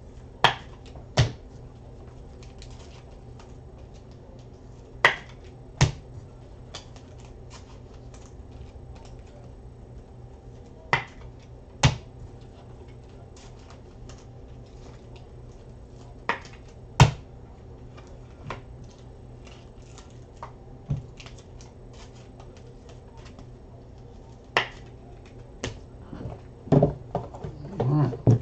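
Sharp clicks, mostly in pairs a second or less apart and spaced several seconds apart, with faint ticks between, over a steady low room hum. Near the end come a cluster of rustles and knocks as a trading card in a plastic holder is handled close to the microphone.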